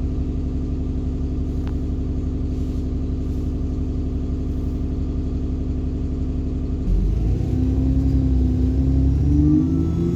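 Alexander Dennis Enviro bus engine idling with a steady hum. About seven seconds in it grows louder and the bus pulls away, with whining tones that rise and fall in pitch as it accelerates.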